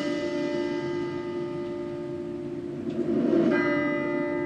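A held musical tone from a movie trailer's soundtrack, played through a TV speaker. It swells about three seconds in and is held on as a new, brighter tone.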